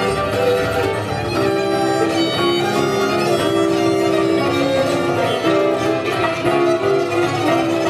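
Instrumental music with a fiddle playing held notes that change pitch every half second or so.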